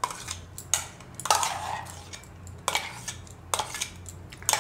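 A steel spoon scraping and knocking inside a stainless steel mixer-grinder jar to get out thick ground paste: about six sharp metal clinks with a short ring, with softer scraping between them.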